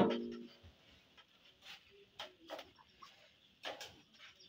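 Pot of pulao stock boiling, with scattered sharp pops and clicks of bursting bubbles. A single louder knock comes right at the start.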